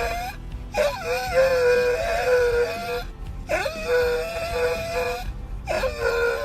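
A dog vocalizing in long, wavering, howl-like calls, the 'talking' sound some dogs make in place of barking. There are three drawn-out calls with short pauses between them, the pitch bending up and down within each.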